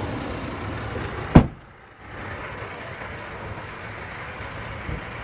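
A GMC Yukon Denali's side door shut once with a single sharp, loud thump about a second and a half in, followed by a faint click near the end.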